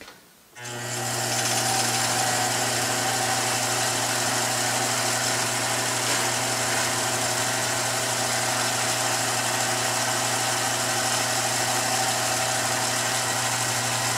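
Professional billiard cue lathe switched on: its motor starts about half a second in, comes up to speed within about a second, and then runs steadily with a constant hum and whir, spinning the cue shaft in the chuck.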